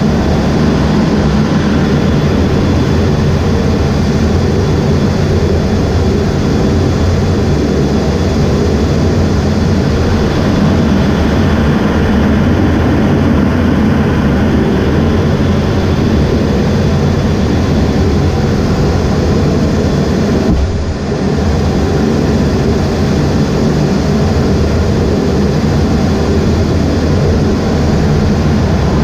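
The EA-18G Growler's twin General Electric F414 turbofan engines running steadily on deck, heard from inside the cockpit as a loud, even roar over a low hum. The noise dips briefly about 21 seconds in.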